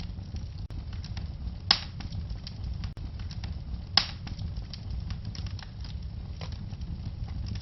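Wood fire crackling in a fireplace: a low steady rumble of the flames with many small crackles and two loud sharp pops, about two seconds and four seconds in.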